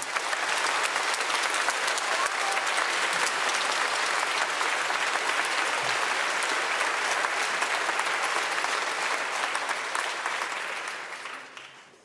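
Theatre audience applauding steadily after the orchestral music stops, the clapping dying away near the end.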